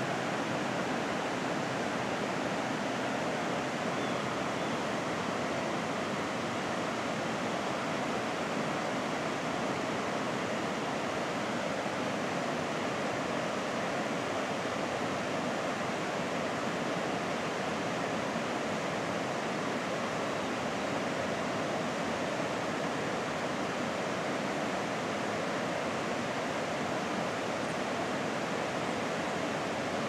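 Steady, even rushing noise with no distinct events.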